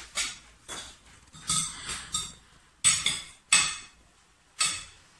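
Metal knives and forks clinking and scraping on ceramic dinner plates while eating, several short sharp clinks at uneven intervals.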